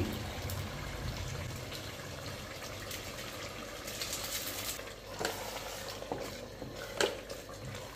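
Eggplant sauce simmering in a stainless steel pot while a wooden spatula stirs it, with a couple of short knocks about five and seven seconds in.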